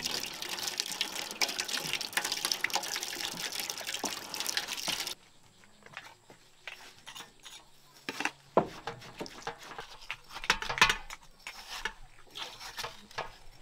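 Watermelon juice pouring out in a steady splashing stream that cuts off abruptly about five seconds in. After that come scattered knocks and clicks.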